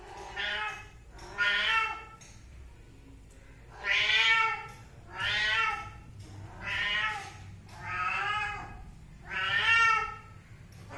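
A cat meowing repeatedly: seven drawn-out meows, each under a second long, coming about one to one and a half seconds apart.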